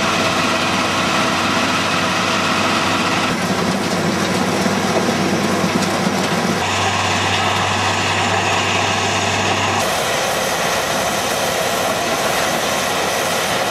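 Gipokombi RC 130 C mobile crushing and screening plant running at work: a steady, loud drone of its diesel engine, crusher and conveyors. The tone of the noise changes abruptly three times.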